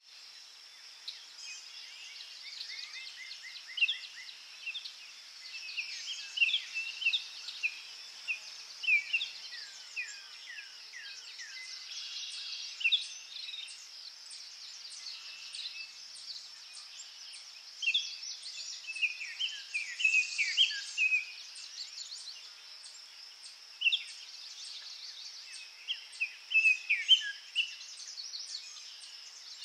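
Small birds singing: many short chirps, quick downward sweeps and trills, in bouts all through, over a steady high-pitched buzz.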